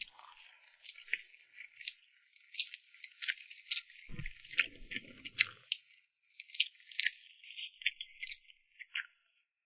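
Close-miked eating sounds: a dense run of sharp, wet clicks and crackles from the mouth and cake, with a brief muffled handling noise about four seconds in.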